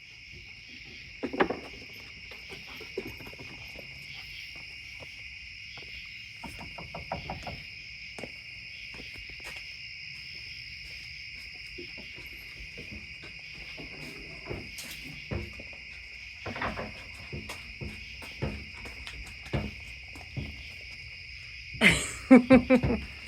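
Thumping from a German Shorthaired Pointer: scattered knocks and short quick runs of them, with the loudest cluster near the end. Steady insect chirring, like crickets, goes on behind.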